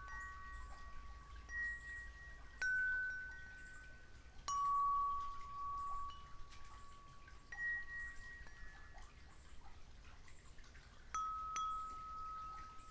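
Chimes ringing: clear single metal notes struck at irregular moments, each ringing on and slowly fading, with the loudest strikes about two and a half seconds in, near the five-second mark, and about eleven seconds in.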